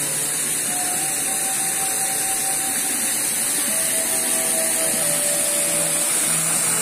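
Steady, even rush of flowing water at a mountain water source.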